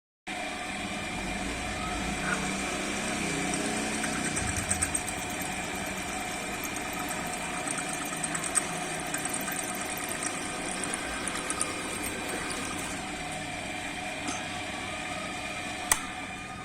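Bench drill press motor running steadily with a steady whine, while a cutting tool scrapes and chatters against a square stainless-steel bar spinning in the chuck, with scattered ticks and one sharp click near the end.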